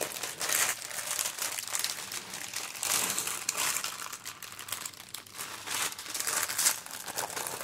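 Thin plastic crinkling and rustling as strings of small diamond-painting drill baggies are handled and pulled out of a larger clear plastic bag: an irregular crackle that rises and falls throughout.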